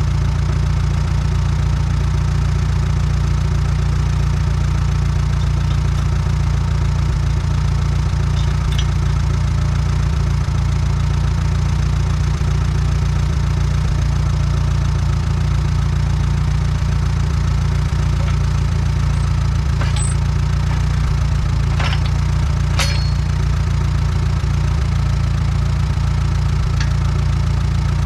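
Allis Chalmers WD tractor's four-cylinder engine idling steadily, with a few sharp metallic clanks and knocks over it.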